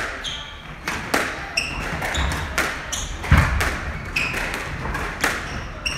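Squash rally: the ball cracks off rackets and the court walls in a quick series of sharp hits, about two a second. Shoes squeak and feet thud on the wooden court floor between shots.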